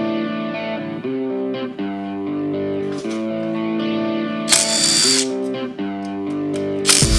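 Guitar background music with a steady beat. A cordless Kobalt power tool runs briefly about four and a half seconds in, then starts again, louder, near the end, backing out the crankcase bolts.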